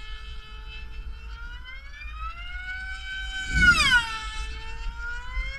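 Q500 pylon racing model plane's two-stroke glow engine running flat out, a high-pitched whine that climbs as the plane approaches and drops sharply as it flies past about four seconds in. The engine is set a bit rich.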